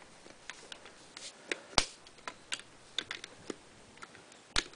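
Plastic Lego bricks being handled and snapped together during rebuilding of a model: a run of small, irregular clicks, with two louder clacks, one about two seconds in and one near the end.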